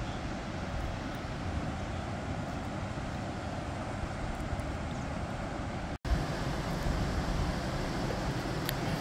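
Wind blowing on the microphone, a steady low rumble. The sound cuts out for an instant about six seconds in, then the rumble comes back a little louder.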